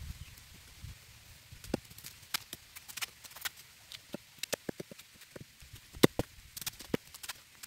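A machete cutting the tough outer sheaths off a freshly dug bamboo shoot: a run of irregular sharp taps and chops, the loudest about six seconds in.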